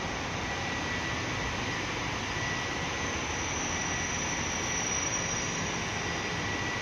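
Diesel engines of a JR Hokkaido KiHa 283 series express railcar idling at the platform: a steady hum with a thin, high-pitched whine over it.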